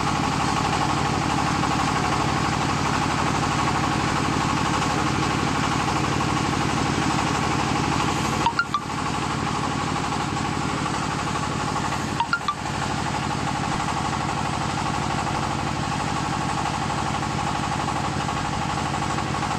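Small engine of a portable hydraulic soil-sampling drill rig running steadily under load while the drill rod bores into the ground. Two brief sharp knocks come about four seconds apart near the middle.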